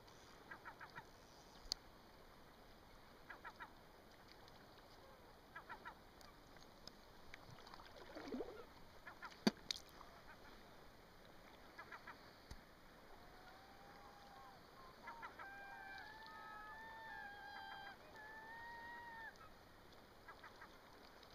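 Gulls calling: short groups of rapid, harsh notes repeat now and then, with a falling call about eight seconds in. A wavering whistle-like tone runs for several seconds in the second half, and there is a single sharp click near the middle.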